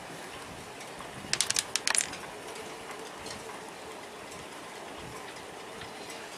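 A quick run of about six sharp clicks or snaps about a second and a half in, over a steady faint hiss.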